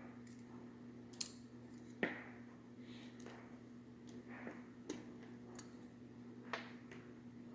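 Scattered light metallic clicks and taps, about six spread over several seconds, as the small parts of a disassembled dimple lock are handled.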